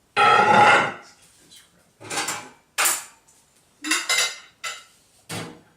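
A plate and dishes clattering and knocking as they are handled at a microwave oven. A loud clatter that rings for most of a second comes first, then four or five shorter, sharper knocks.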